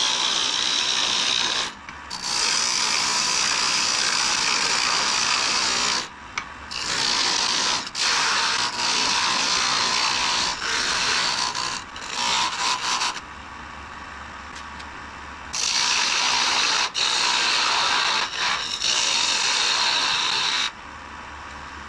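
A wood lathe turning tool cutting into a spinning wood cylinder, with a rough hiss as shavings peel off. It comes in several long cuts broken by short pauses, where the tool is lifted and only the lathe's low hum remains.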